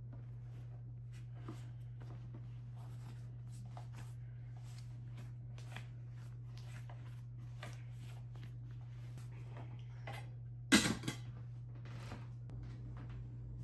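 Light clicks and rustles of small objects being handled, over a steady low hum, with one sharp knock and two smaller ones shortly after, near the end.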